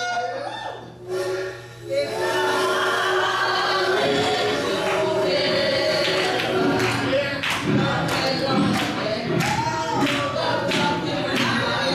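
Gospel choir singing, with the instrumental backing and a steady beat filling in about four seconds in.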